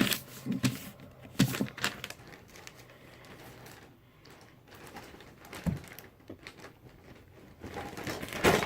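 Items being handled and packed: crinkling and rustling with scattered light clicks and knocks, louder about a second and a half in and again near the end.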